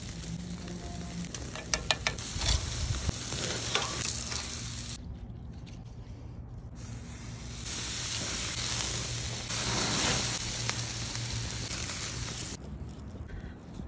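Ribeye steaks sizzling as they sear on a grill grate over wood coals. A few sharp clicks come about two seconds in.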